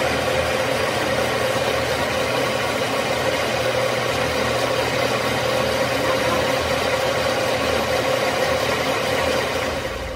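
Metal lathe running with its chuck spinning a steel cylinder sleeve, a steady machine whine and hum throughout. The sound drops away sharply near the end.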